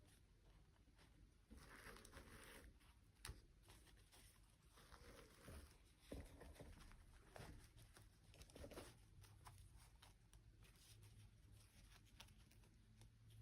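Near silence with faint handling noises: scattered small clicks and short rustles, with a sharper tick about three seconds in and again about six seconds in.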